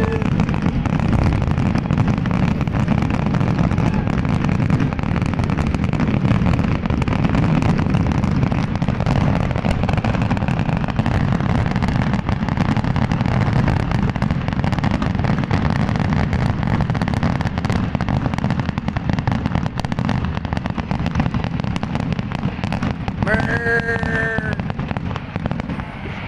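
Fireworks finale: a continuous barrage of aerial shell bursts, heard as a steady low rumble full of dense crackling. It eases slightly near the end as the show finishes.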